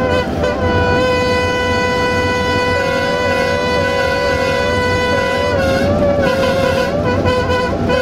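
Air horn of an LDH1250 diesel-hydraulic locomotive sounding one long, unbroken blast: wavering in pitch at first, held dead steady from about half a second in until about five and a half seconds, then wavering again. A low rumble runs underneath.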